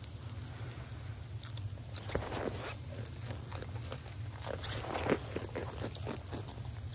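Goats crunching and chewing ginger snap cookies from a hand: a run of irregular crisp crunches that starts about two seconds in and is busiest around five seconds.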